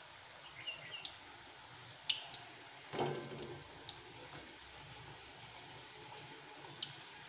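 Roll samosas deep-frying on a low flame in a kadhai of oil: a steady sizzle with scattered pops and crackles. About three seconds in, a louder stir as a slotted metal spoon goes into the oil and turns them.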